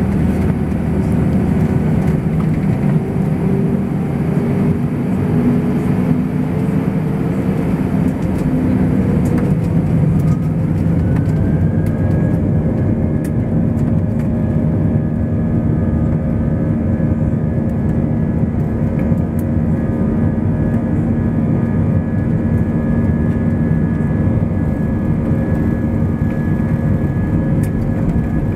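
Airbus A320's jet engines heard from inside the passenger cabin: a loud, steady rumble with whining tones that rise in pitch about ten seconds in and then hold steady.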